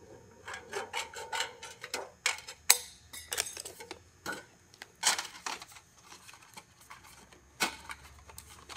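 Irregular light clicks, taps and clinks of a sheet-metal roof flashing piece being handled, marked against a wall corner and set down on asphalt shingles. A few sharper clinks stand out, about three seconds into the sound, near the middle and near the end.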